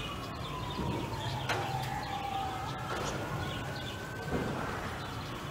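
Emergency vehicle siren in a slow wail: its pitch falls over the first couple of seconds, climbs slowly, and begins to fall again near the end.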